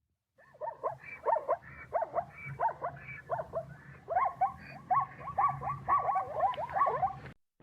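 A rapid series of short, high yelping animal calls, about two or three a second, each bending in pitch, cutting off suddenly near the end.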